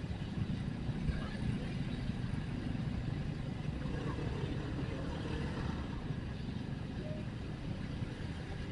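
Motorcycle running while being ridden, a steady low rumble of engine and road noise.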